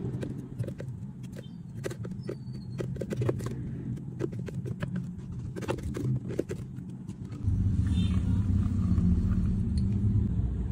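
A plastic spatula scrapes and taps against a plastic blender jar as thick blended frappe is scooped into a glass, giving a string of light clicks and knocks over a steady low rumble. The rumble becomes louder about seven and a half seconds in.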